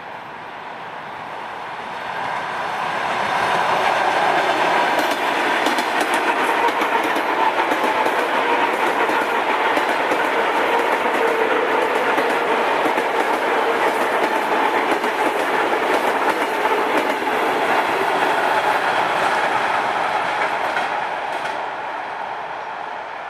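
A train passing close by: it swells over the first few seconds, runs loud and steady with rapid clicking of the wheels over the rail joints, then fades near the end.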